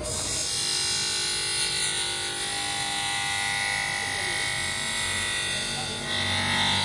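Small bench grinder motor running with a steady whine, its thin abrasive disc cutting into a clear plastic sheet; the sound shifts about six seconds in.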